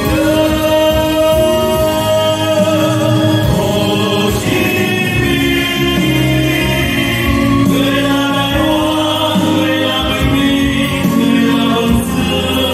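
A choir singing a song, holding long drawn-out notes over instrumental accompaniment.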